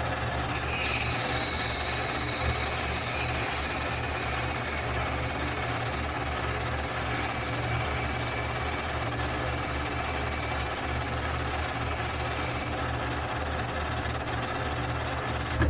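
Metal lathe running with a Dana 60 axle shaft spinning, a steady motor hum, while emery cloth held against the turning shaft hisses as it polishes the surface; the hiss stops near the end while the lathe keeps running.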